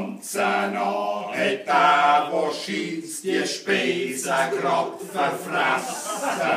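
A small group of voices singing a Schnitzelbank verse in Swiss German dialect.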